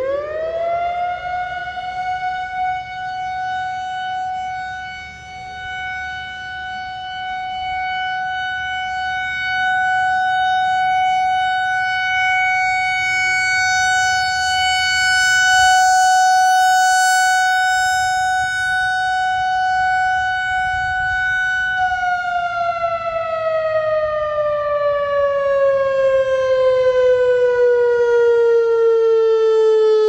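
Whelen WPS-4004 analog electronic outdoor warning siren sounding its steady alert tone. It winds up quickly to a high, steady pitch and holds it for about twenty seconds, the loudness swelling as the speaker head rotates, then winds down slowly in falling pitch.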